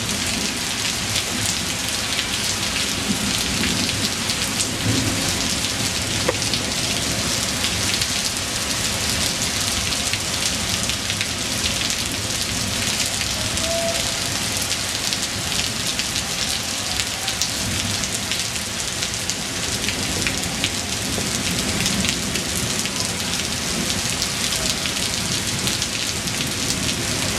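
Heavy rain pouring down steadily in a dense, even hiss, with no let-up.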